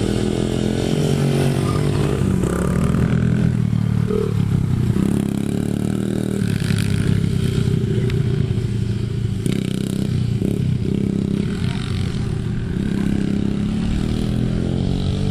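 Small dirt bike engine running and revving up and down as it is ridden over dirt.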